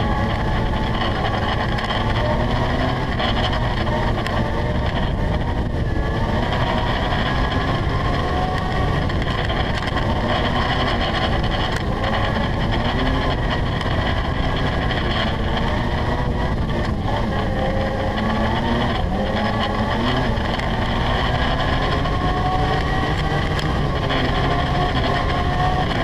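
ATV engine running while riding over rough river ice, its pitch rising and falling slowly as the throttle changes, over a dense, steady rumble.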